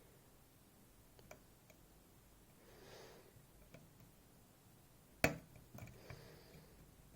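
Lock pick working the pins of a Goal Z 7-pin cylinder under tension: a few faint ticks, then one sharp click about five seconds in, typical of a pin setting.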